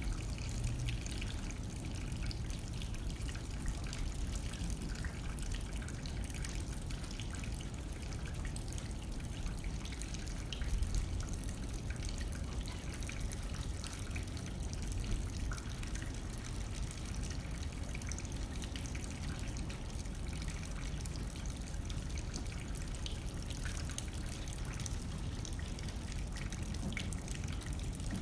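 Steady rain hitting a window pane, with many small drops ticking against the glass over a low, steady rush of wind.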